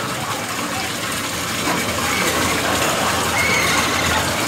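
Steady rush of water pouring into a capybara bath pool, with a few short faint high squeaks over it.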